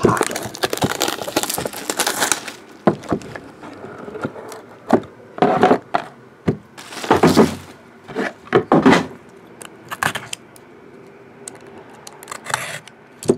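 Plastic shrink wrap crinkling and tearing as it is pulled off a sealed trading-card box, then scattered knocks, taps and rustles as the box lid is lifted and a foil-wrapped card pack is handled. A utility knife slits the foil pack near the end.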